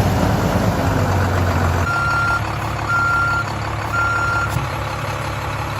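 Truck engine running hard, loudest in the first two seconds, then settling to a steadier run. Its reversing alarm beeps three times, about a second apart.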